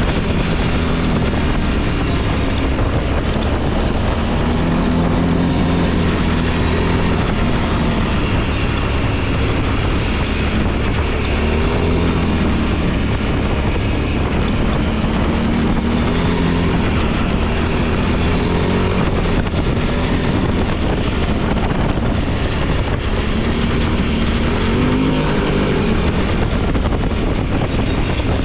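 Off-road vehicle's engine running under way, its pitch rising and falling again and again as the throttle comes on and off.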